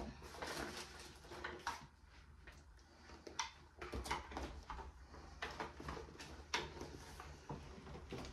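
Handling and rummaging in a clear plastic makeup pouch: irregular crinkles and sharp clicks of makeup products knocking together.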